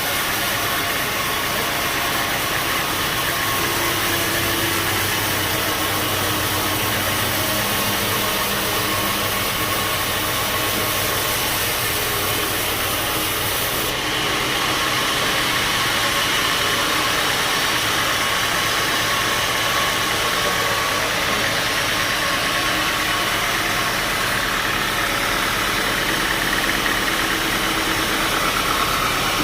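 Sawmill band saw machinery running steadily: a constant mechanical drone with a strong high hiss, the top of the hiss easing slightly about halfway through.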